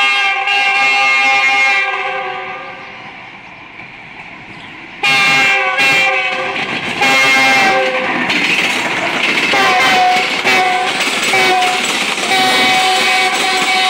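A GEU-40 diesel-electric locomotive sounds its horn in long blasts as it comes in, fading about two seconds in. Around five seconds in it blasts again in several broken toots. The train then runs close by, its wheels rumbling and clattering over the rails, with more short horn toots over the noise.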